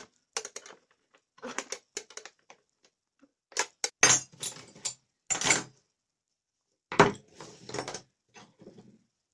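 Metal hand tools (wrenches, pliers, screwdrivers) clinking and clattering against each other on a table as they are picked up and put down. It comes as a string of short, irregular knocks and rattles, loudest about four and seven seconds in.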